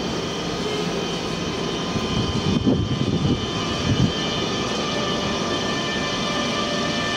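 Double-deck regional passenger train moving slowly out along the platform: a steady rumble of the rolling coaches with several steady whining tones above it and a few low thumps near the middle.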